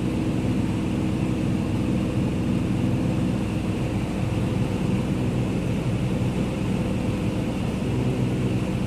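Light propeller airplane's engine and propeller droning steadily and evenly, with several constant low tones.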